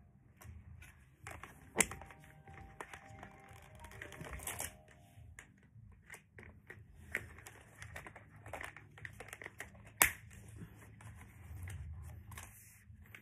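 Plastic Hot Wheels track pieces clattering and clicking as they are handled and fitted together, with two louder sharp knocks, about two seconds in and about ten seconds in.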